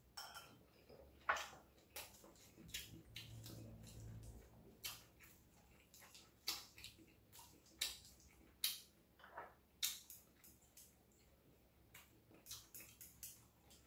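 Metal chopsticks clicking and tapping against ceramic bowls and plates while eating: scattered sharp clicks, a few a second at times, the loudest about a second in.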